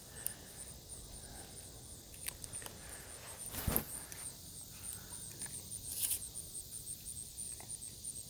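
Insects chirring in a steady, finely pulsing high trill, with scattered light clicks, a knock about three and a half seconds in and a short high rustle about six seconds in.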